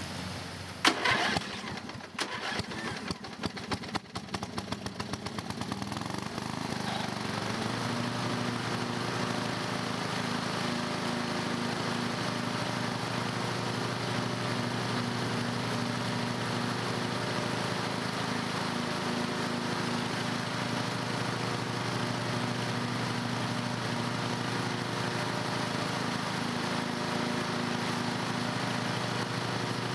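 Riding lawn mower: a loud clack about a second in and a few seconds of rapid, irregular clatter, then the engine settles into a steady run with the blades spinning in the deck while a PVC deck washer sprays water up underneath to clean it.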